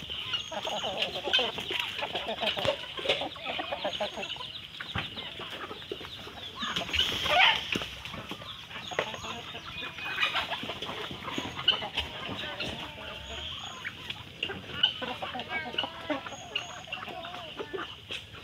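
Free-ranging chickens clucking, with a louder call about seven seconds in, over a steady high hiss and scattered knocks.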